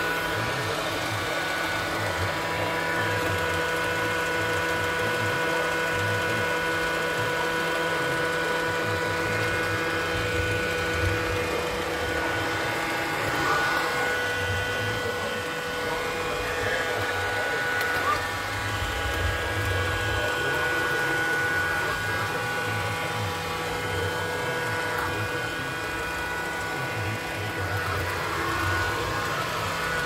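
Robot vacuum cleaner running across a wooden floor: a steady motor whine of several fixed pitches over a low rumble.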